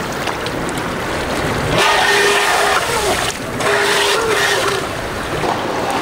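Shallow river rapids rushing, with the Streamline RC Thrasher jet boat's electric motor whining at a steady pitch in two spells from about two seconds in, cutting out briefly between them as the throttle is feathered.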